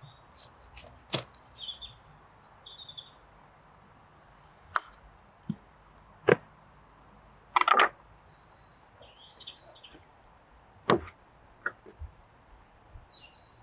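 Scattered sharp knocks and clicks of handling, about seven of them, the loudest a quick double knock about two-thirds of the way through. Small birds chirp briefly between them.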